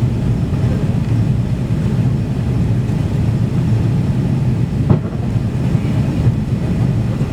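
Cabin noise of a Boeing 777-300ER airliner in flight: a steady low rumble. A single short thump comes about five seconds in.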